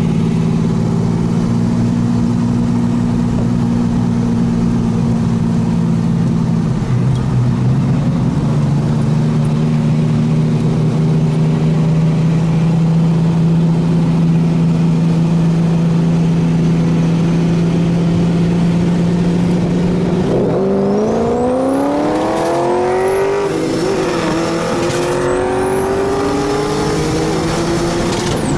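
Turbocharged Ecotec V6 Commodore engine holding a steady drone while rolling at constant speed. About twenty seconds in it is floored and the pitch climbs hard, dipping at a gear change before rising again as the car accelerates in a roll race.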